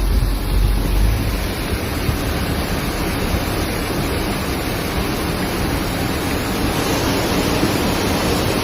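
Steady rushing noise of heavy rain and water, with wind buffeting the microphone in the first second or so.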